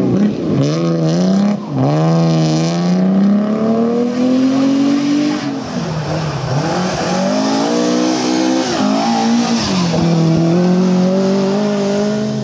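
Rally car engines at high revs, each run's pitch climbing steadily and dropping sharply about three times as the cars shift or lift off, with tyre noise on a loose surface.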